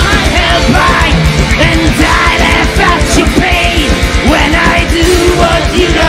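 Live heavy metal band playing loud: distorted electric guitars, bass and drums, driven by a rapid, steady kick-drum beat.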